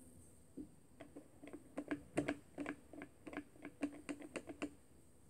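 A quick, irregular run of light clicking taps, about five a second, like fingers typing, stopping shortly before the end.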